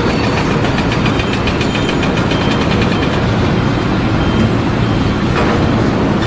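An engine running steadily, like a truck or other heavy machine idling.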